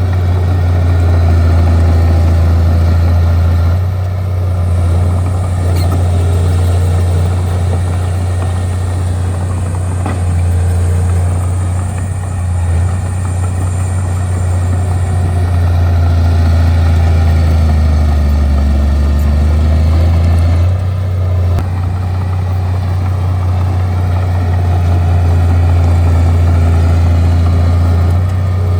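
Bulldozer's diesel engine running steadily with a deep, continuous hum, easing off briefly a few times as the load changes.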